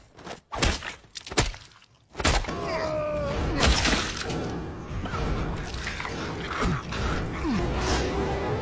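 Film soundtrack: a few hard thuds, like stomping blows, in the first two seconds. After that comes a dense, continuous mix of action sound effects and music, with a falling cry about three seconds in.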